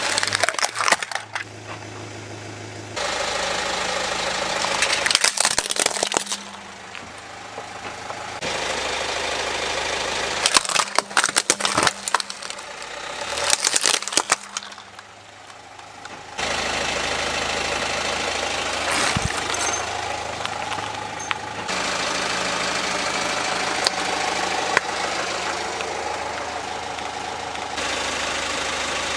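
Car engine idling while the tyre rolls over plastic toys, with several bursts of cracking and crunching plastic, mostly in the first half. The engine hum changes abruptly in pitch and level a few times.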